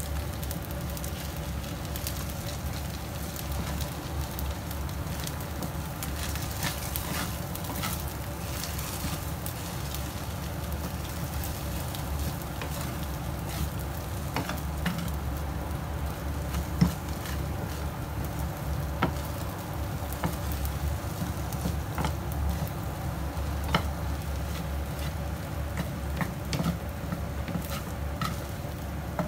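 Rice and beaten egg frying in a nonstick pan with a light sizzle, while a wooden spatula stirs and scrapes through it, with scattered clicks as it knocks the pan. A steady low hum runs underneath.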